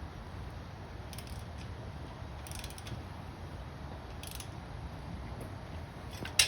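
Ratchet wrench clicking in short bursts, tightening the exhaust header nuts, with a single sharp clack near the end.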